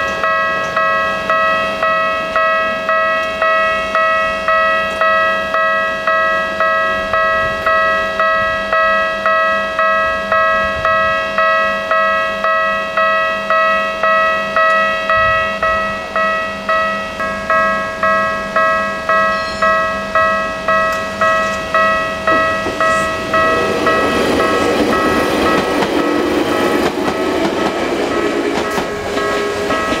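Japanese railway level-crossing warning bell ringing steadily, about three dings every two seconds, as the crossing closes. In the last several seconds the rumble of an approaching train swells beneath the bell.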